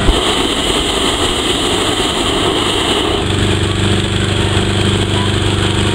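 Balloon inflator fan's small engine running steadily. A rushing noise drowns it out for about the first three seconds.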